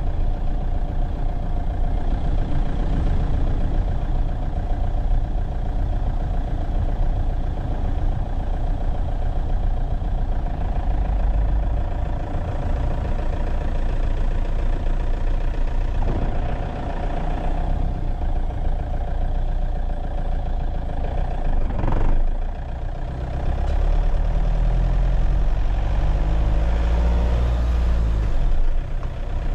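A vehicle being driven: a steady low engine and road rumble. There is a brief knock about three quarters of the way through, and near the end an engine note wavers up and down.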